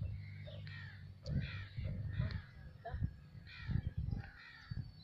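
Crows cawing, a short harsh call repeated many times, over low rumbling thumps.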